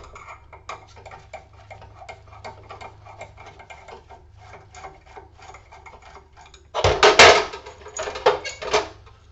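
Rapid light metallic ticking from a hand tool working out a screw, several ticks a second. About seven seconds in comes a loud metal clatter, followed by a few sharp clinks as parts are handled.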